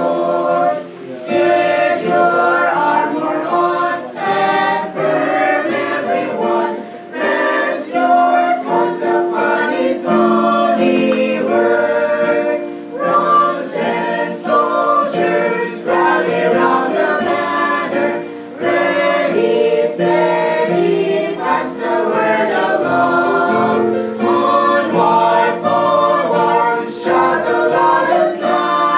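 Small mixed choir of men and women singing a hymn together in phrases, with short breaks between lines.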